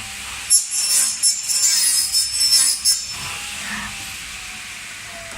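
Cutters of an automatic PVC window corner cleaning machine machining the plastic frame, most likely to clear the weld seam: a shrill, uneven cutting burst of about two and a half seconds, followed by a lower steady machine hiss.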